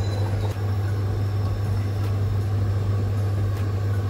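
A steady low machine hum with a faint hiss behind it and a few light clicks.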